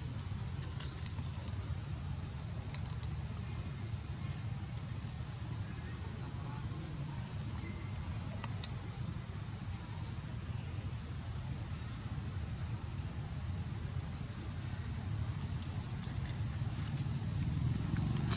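Insects droning steadily on one high, unbroken pitch, over a low rumbling noise.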